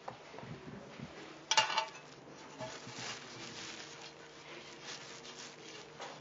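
Bags and small objects being handled: rustling and clicking, with a brief sharp clatter about a second and a half in, over a faint steady hum.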